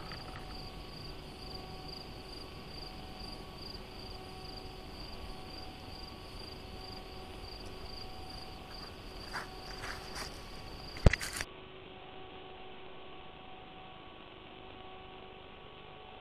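Faint, steady insect chirping in the grass, a high pulsing trill, with a few brief calls near the middle. About eleven seconds in there is a sharp click, after which only a steady electrical hum remains.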